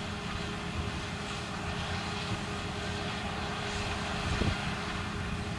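John Deere 9770 combine harvester running steadily, a constant machine noise with a steady hum.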